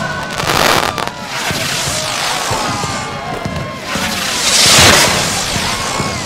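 Fireworks going off: two loud bursts of hissing crackle, about half a second in and, loudest, around four and a half seconds in, over the voices of a crowd.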